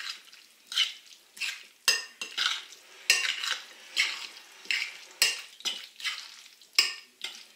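A metal spoon stirring a chunky dressed shrimp and egg salad in a glass bowl: wet scraping strokes about twice a second, the spoon now and then clinking against the glass.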